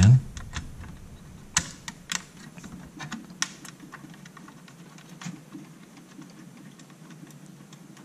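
Light clicks and taps of a thin perforated metal shield being set back over a thin-client PC's RAM slots and pressed into place against the chassis. The loudest clicks come about one and a half and two seconds in, with scattered smaller ones after.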